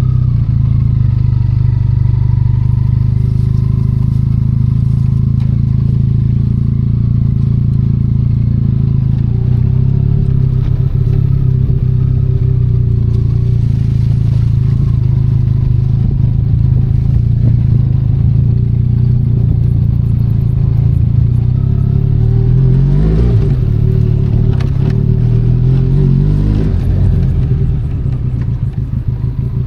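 Benelli Leoncino 500 Trail's parallel-twin engine running steadily while the scrambler is ridden off-road. Toward the end the engine speed dips and climbs again a few times as the throttle is rolled off and opened.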